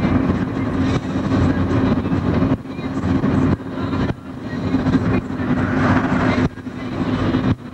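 Road and engine noise from inside a moving car cruising at speed, a steady rumble with a low hum that drops sharply several times and builds back up.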